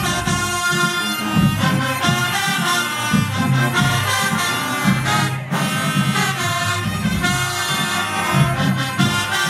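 Loud brass-heavy music with a strong, steady beat in the bass.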